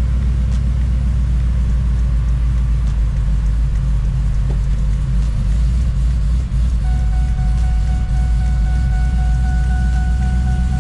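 Ford SVT F150 Lightning's supercharged V8 idling steadily, heard from inside the cab, while the transmission sits in gear to circulate fluid through a freshly installed valve body. A steady, thin high tone joins about seven seconds in.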